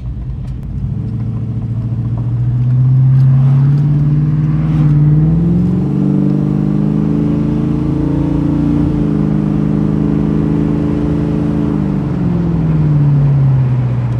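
Chevrolet Blazer's engine and exhaust under way. The pitch climbs as it accelerates over the first few seconds, holds steady at cruise, then falls away near the end as it eases off.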